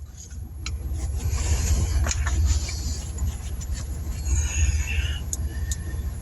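Pickup truck engine idling with a steady low rumble, with a few light clicks and brief rustles over it.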